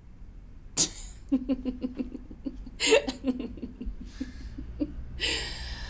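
A man laughing in breathy chuckles: runs of short rapid pulses broken by sharp breaths, ending in a long exhale.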